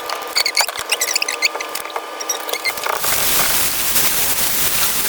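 A run of clicks and short high squeaks. About three seconds in, chicken pieces start sizzling in a hot frying pan, a steady hiss that stays.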